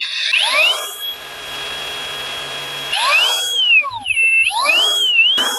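An 18 V brushless cordless 4-inch angle grinder switched on with no load: the motor's whine rises quickly to full speed and runs steadily. From about three seconds in the pitch steps down and back up a few times as the speed is switched between the high and low settings.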